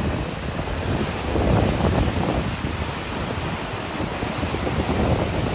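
Ocean surf washing ashore, with wind buffeting the microphone; the noise swells and eases with the waves.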